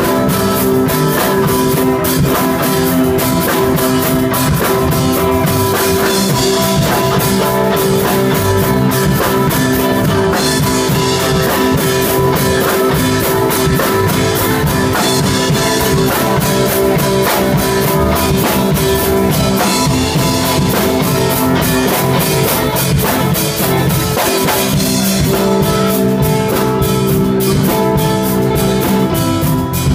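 Live rock band playing: electric guitar and a drum kit, loud and steady throughout.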